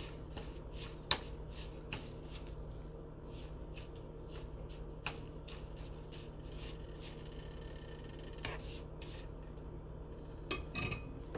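Metal spoon scraping and clicking against a frying pan while stirring semolina roasting in ghee, over a steady low hum, with a few louder knocks near the end.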